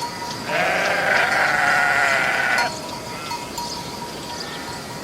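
A sheep bleating: one long, loud, wavering bleat lasting about two seconds, then a fainter short call.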